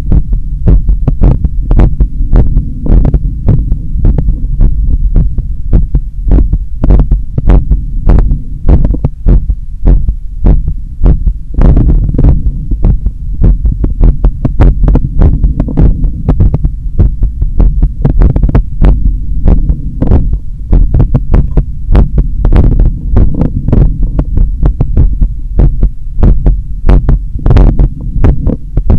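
Human heart sounds heard through a stethoscope on the chest at the apex: a regular lub-dub that keeps repeating over a steady low hum. This is the heartbeat of a runner straight after a long run in the heat.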